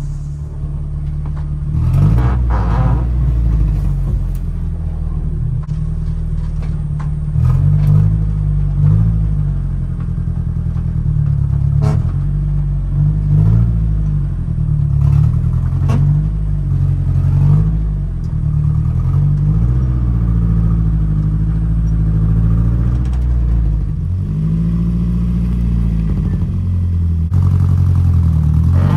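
An old SUV's engine running under load and being revved up and down, heard from inside the vehicle's rear cargo area, with a few sharp knocks and clatter. It is straining to move a dead car that has no working rear axle.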